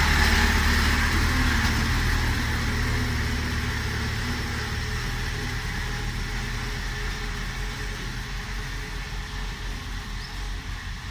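Six-wheel dump truck's diesel engine running as the truck passes close by and pulls away along a dirt track, the sound fading steadily.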